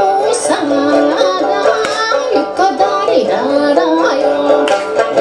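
Live Okinawan folk song: a woman singing a held, ornamented melody while playing the sanshin, with keyboard accompaniment.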